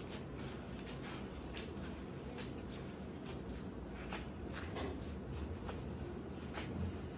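Gloved hands kneading and pressing a mound of minced fish on a plastic cutting board: soft, irregular squishing and patting over a steady low hum.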